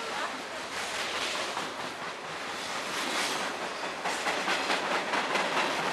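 Freight train cars rolling past close by: a steady rushing rumble with the steel wheels clicking over the rails in a repeating rhythm.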